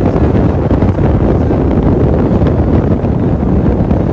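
Loud, steady wind buffeting the microphone aboard a speedboat running at speed, mixed with the low rush of the boat's engine and water.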